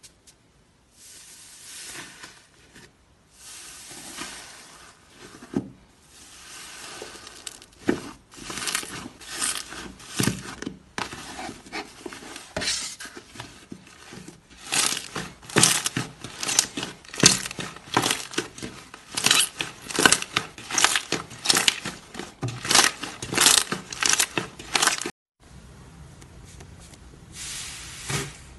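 Hands pressing and kneading slime: soft squishing at first, then a dense run of sharp crackling pops and clicks from about eight seconds in, stopping abruptly near the end.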